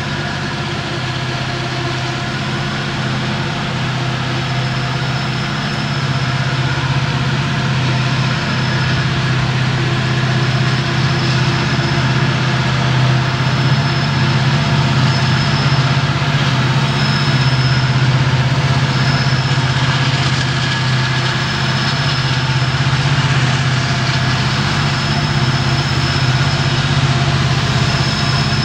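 Norfolk Southern EMD SD70ACe diesel-electric locomotive working hard uphill, its turbocharged V16 two-stroke engine screaming at high throttle and getting steadily louder as it approaches. A thin high whine comes and goes above the engine note.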